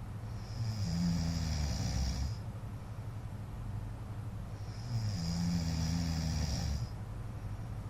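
A man snoring in his sleep: two long snores about four seconds apart, each lasting about two seconds, over a steady low hum.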